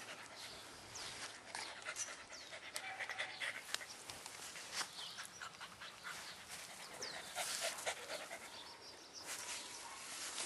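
Lhasa Apso puppy panting in quick breaths, with scattered small clicks and rustles.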